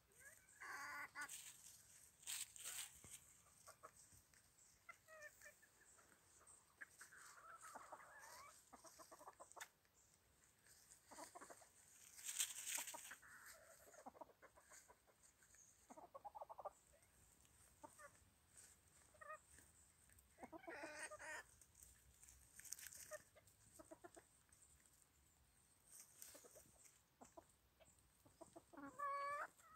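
Faint, scattered clucking of a flock of bantam chickens foraging, a few short calls spread through, with occasional brief rustles of dry leaves.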